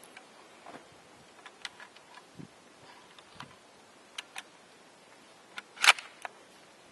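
Scattered metallic clicks and clacks from a bolt-action Japanese Type 99 rifle being handled and worked between shots, with one sharp, louder clack about six seconds in.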